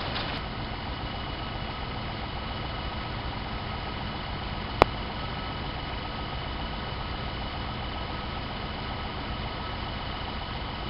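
A steady mechanical hum, low and even, with a faint high whine, and one sharp click near the middle.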